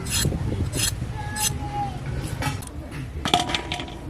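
A knife scraping the skin off pointed gourds in short, repeated strokes, about two or three a second. There is a sharp metallic clink about three seconds in, with a brief ring.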